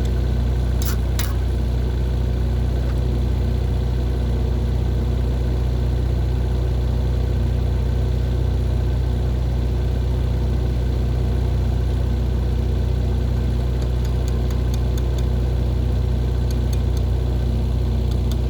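Steady low drone of heavy machinery running, with a few faint clicks about a second in and again near the end.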